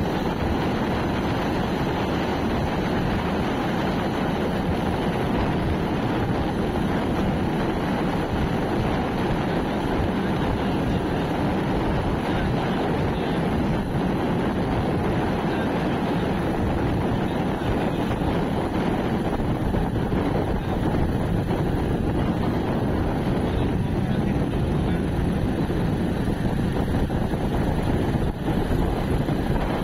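Steady wind rush over the microphone from a moving vehicle, with engine and tyre-on-road noise underneath, holding an even level throughout.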